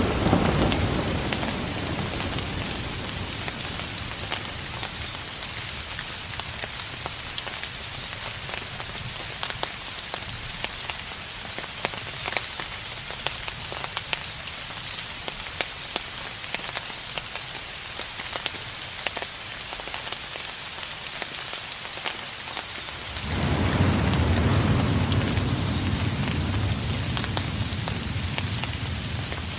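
Steady rain falling, with many small drop ticks, under distant thunder: one rumble dies away in the first couple of seconds, and another starts suddenly about 23 seconds in and slowly fades.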